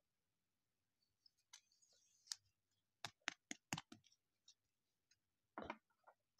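Faint clicks and scrapes of a plastic card sleeve and a rigid plastic hard case being handled as a trading card goes in. There is a quick run of about five sharp clicks around the middle and a short rustle near the end.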